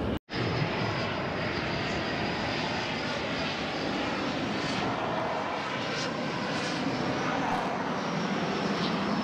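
Military fighter jet flying overhead: a steady jet engine noise with a thin high whine, which cuts off abruptly near the end.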